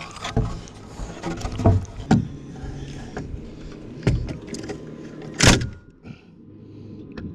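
Scattered knocks and thumps of wooden 2x6 lumber being pushed and knocked into place against a pole, irregularly spaced. The loudest knock comes about five and a half seconds in.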